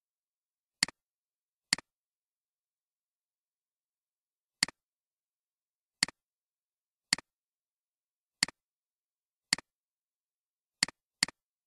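Computer mouse clicks, nine in all at uneven gaps, each a sharp double click of press and release, with the last two close together near the end.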